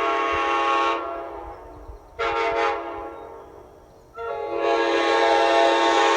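Nathan Airchime K5LA five-chime locomotive horn sounding its chord. A long blast cuts off about a second in and dies away, a short toot follows about a second later, and another long blast starts about four seconds in and holds.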